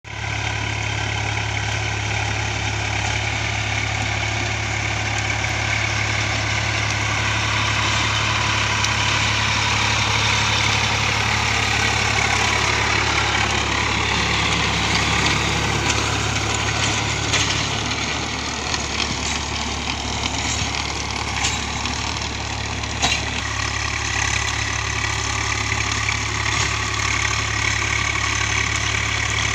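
Swaraj 744 FE tractor's three-cylinder diesel engine running steadily under load while driving a rotavator that churns soil and scrub, with a few sharp knocks in the second half.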